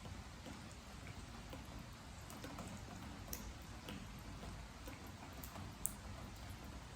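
Rain falling, with water drops dripping onto a wooden deck in irregular single ticks; the sharpest drop lands about six seconds in.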